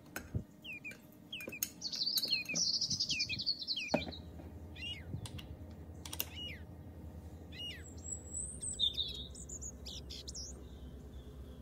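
Small birds chirping and twittering: many quick, short chirps and trills, busiest in the first four seconds, with a few light clicks among them.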